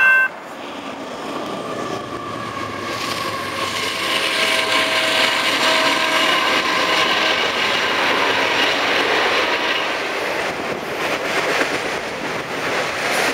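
Freight train of autorack cars rolling past, a steady noise of wheels on rail that swells over the first few seconds and then holds. Thin squealing tones sound over the noise.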